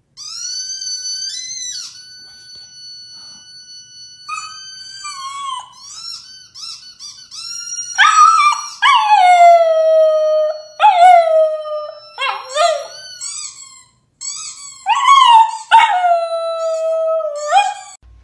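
Small husky-type dog howling: high, drawn-out whines at first, then from about eight seconds on, louder long howls that slide down in pitch, broken by short yips.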